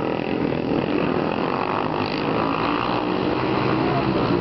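Vintage flat-track racing motorcycles running at speed around a dirt oval, their engine notes rising and falling as they go round.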